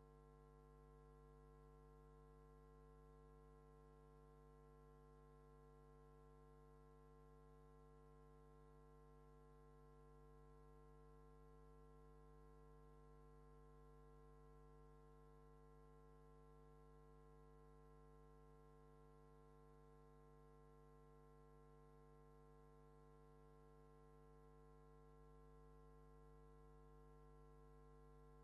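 Near silence: only a faint, steady hum of fixed tones that never changes.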